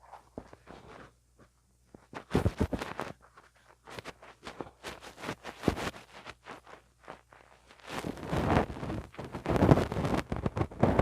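Ear-cleaning tools scraping and tapping right on a mini microphone, as in ear-picking ASMR: bursts of rough scratching mixed with scattered clicks. It is nearly quiet for the first two seconds and densest near the end.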